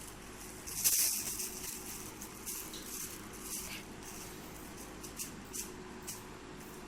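Plastic crinkling and rustling in short, irregular bursts as a kitten plays with it, the loudest crackle about a second in and lighter rustles after.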